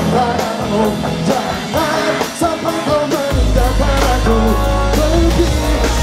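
Pop-rock band music with a lead voice singing; a heavy bass comes in about halfway through.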